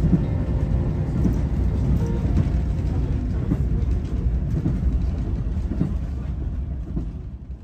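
Moving railway passenger carriage heard from inside: a steady low rumble of the running train, with irregular knocks and rattles from the coach. The sound fades out near the end.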